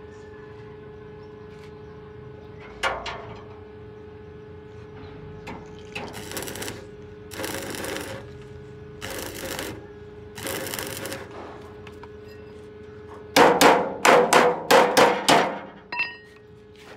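Metal repair work: a single knock, four rasping strokes of under a second each, then a quick run of about eight loud hammer blows on metal with a brief ring after them, over a steady faint hum.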